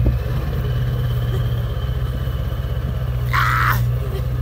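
Pickup truck's diesel engine running steadily while towing, a pulsing low drone. A short hissing burst about three seconds in.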